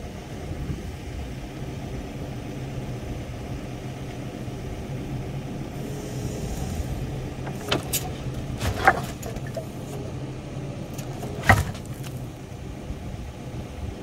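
Machine engine idling steadily, with a few sharp metal clanks from work on the quick coupler, the loudest about three-quarters of the way through.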